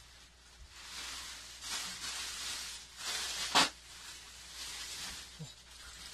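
Plastic packaging rustling and crinkling as it is handled, in several short spells, with one sharp crackle about three and a half seconds in.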